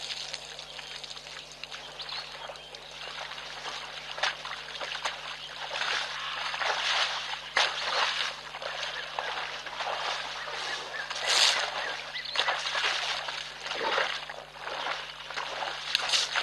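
African bush elephant sloshing and splashing in a shallow mud wallow with its trunk, irregular wet slaps and splatters of muddy water coming in uneven bursts.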